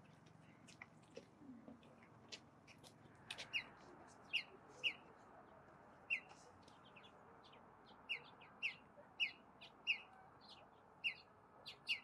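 Western bluebirds calling. Short, downward-slurred notes are repeated every half second to a second, beginning about three seconds in, after a few faint ticks.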